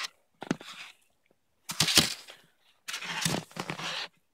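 Handling noise from a Fischer S-Bound 112 touring ski being turned over on crusty snow: a few sharp clicks and knocks, with scraping and rustling between them.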